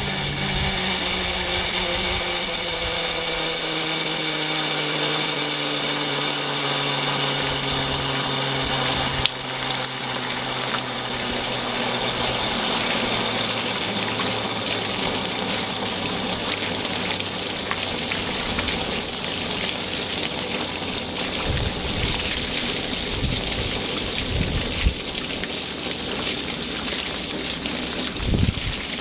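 Steady rain hissing on wet paving, with water gushing from the open bung hole of a full wooden rain barrel and splashing onto a rock and the stones below. A few low thumps come near the end.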